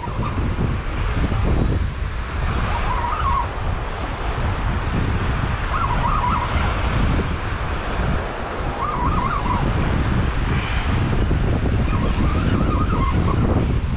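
Wind buffeting the microphone over breaking surf. A short warbling high call sounds four times, about three seconds apart.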